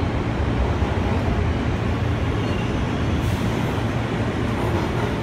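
Inside an R143 subway car in motion: a steady low rumble of the car running along the track, with an even rushing noise over it.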